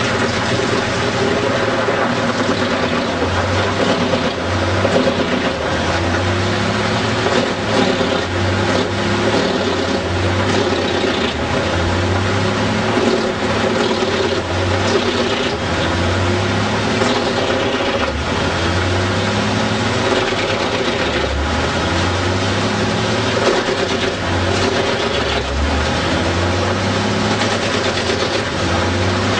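Large drum wood chipper running under load, its spiked feed roller drawing in a tree trunk to be chipped. It makes a loud, steady machine din, with a rising tone that repeats about every second and a half.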